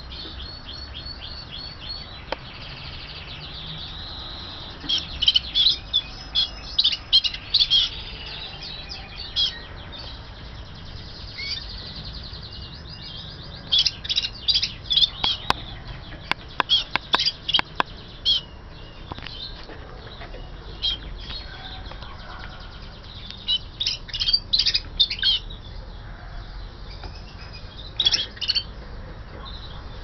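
Caged Gloster canary song: several bursts of rapid high chirps and trills, separated by pauses of a few seconds.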